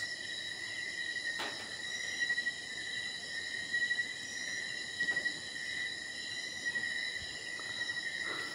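Crickets or other night insects trilling steadily in a high, even tone, with a couple of faint knocks.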